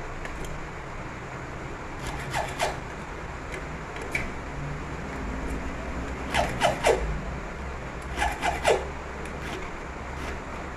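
Small hand file rasping across the edge of a metal key blank in short strokes, in clusters about two, six and eight seconds in: a key being cut by hand, wafer by wafer, to fit an ignition lock cylinder.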